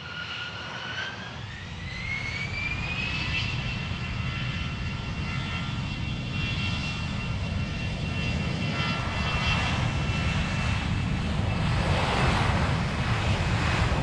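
Jet aircraft engines spooling up: a whine rises in pitch over the first few seconds, then holds steady over a low rumble that grows steadily louder.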